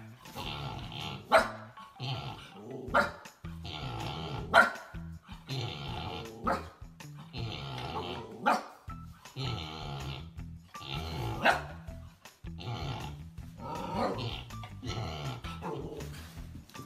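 Husky barking at a sleeping pig to wake it, with a sharp bark every second or two.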